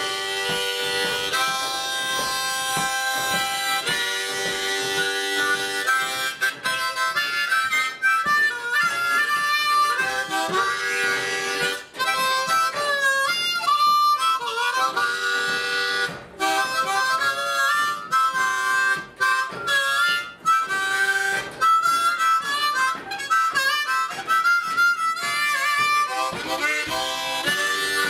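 Blues harmonica played into cupped hands: long held chords at first, then from about six seconds in quicker runs of notes with wavering and bent notes.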